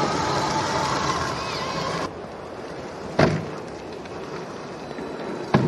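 Six-wheeled off-road truck's engine running under wind noise, cutting off abruptly about two seconds in to a quieter rumble. A sharp thump comes about three seconds in and another near the end.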